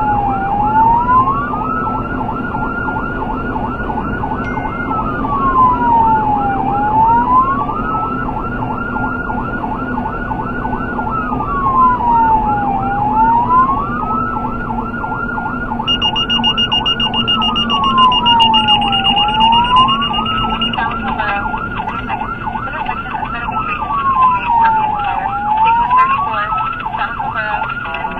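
Emergency vehicle siren sounding a slow wail that falls and rises about every six seconds, with a fast yelp warbling over it, heard from inside a moving vehicle over a steady road and engine drone. About two-thirds of the way in, a high pulsing tone joins for about five seconds.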